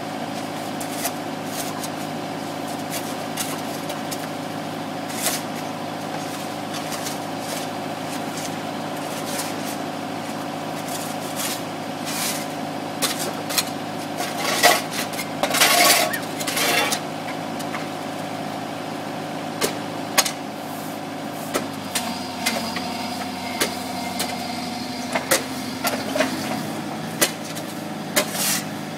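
Bobcat 331 mini excavator's diesel engine running steadily, with shovels and a broom scraping and knocking on broken asphalt; a run of loud scraping comes about halfway through, and the engine note shifts about two-thirds of the way in.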